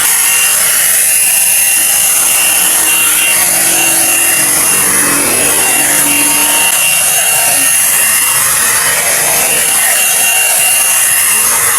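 One-step hot air brush (hairdryer/styler brush) running on its middle setting, a steady blowing whir with a faint high whine, as its bristles are drawn through damp hair with a rubbing rasp.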